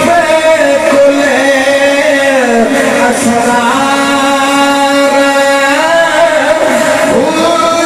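A man singing devotional verses into a microphone, holding long drawn-out notes that glide between pitches.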